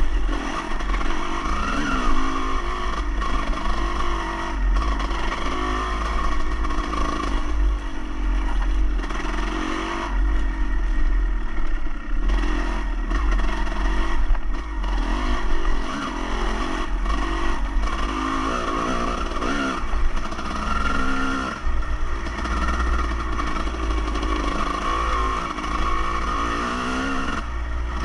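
A motor vehicle's engine running under varying throttle, its pitch rising and falling, over a steady low rumble.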